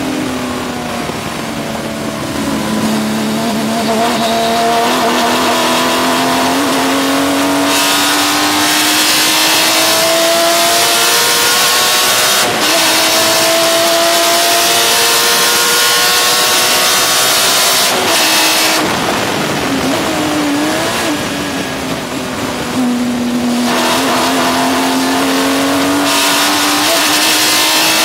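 Porsche 996 GT3 Cup race car's flat-six engine pulling hard at racing speed, its pitch climbing steadily through long stretches, dropping about two-thirds of the way through as the car slows, then climbing again. A hiss comes and goes over it several times.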